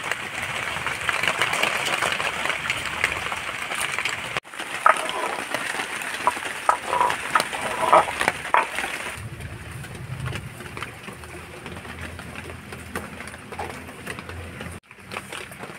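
Water poured and splashing over crab pieces in a steel colander. After a cut, rain falling and dripping from a roof edge, with a few short chirps, then a quieter low, steady hum.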